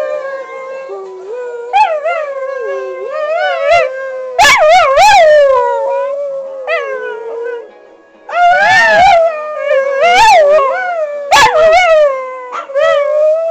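Small dogs howling along to music: long wavering howls that rise and fall in pitch, with a few short sharp yelps among them.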